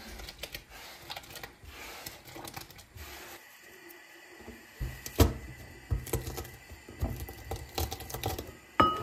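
Irregular light clicks and taps, faint at first and sharper and more frequent from about five seconds in.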